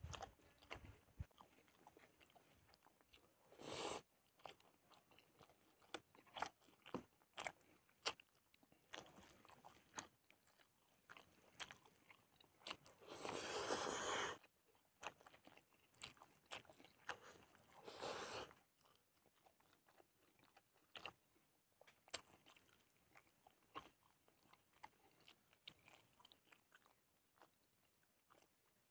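Close-miked mouth sounds of a person eating boiled fish and rice by hand: soft chewing, lip smacks and small clicks, with three longer bursts of noise, the longest over a second, about 4, 13 and 18 seconds in.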